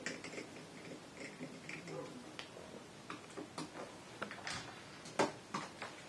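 Faint clicks and scrapes of a flathead screwdriver and a wall outlet's cover plate as the plate is unscrewed and taken off, with one sharper click about five seconds in.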